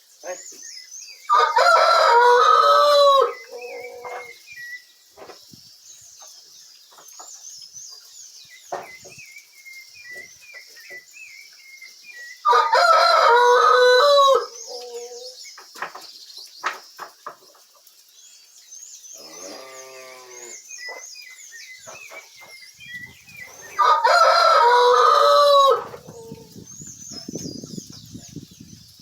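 A rooster crowing three times, about eleven seconds apart, each crow lasting about two seconds, with faint high bird chirps in between.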